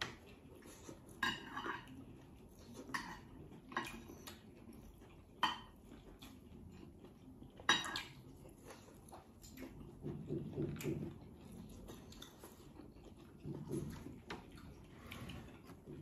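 Cutlery and dishes clinking during a meal: a scatter of separate light clicks and taps, a few sharper ones in the first half.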